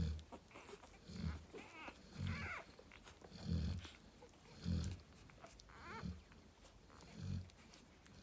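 Cane corso snoring: a low, rasping snore about every second and a quarter, in a steady breathing rhythm. Twice, near 2 s and near 6 s, a thin, wavering higher squeak rides on a snore.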